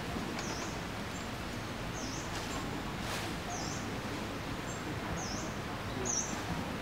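A small bird repeating a short, high chirp about every second and a half over steady outdoor background noise.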